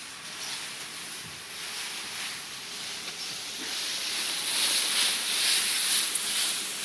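Leafy rustling and swishing of a large bundle of freshly cut green fodder stalks carried on a man's back, the leaves brushing against each other and along the brick floor. The rustle grows louder about four seconds in as the bundle passes close by.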